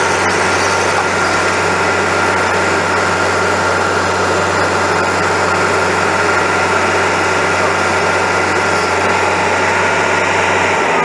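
Bobcat skid-steer loader's engine running steadily at close range, with a constant low hum and a steady higher whine, as the machine works a pile of earth and a tree stump.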